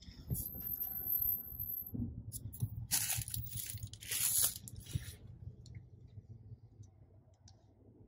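Clear plastic protective seat covers crinkling and rustling in a few short bursts, the loudest about three and four seconds in, over a low steady hum.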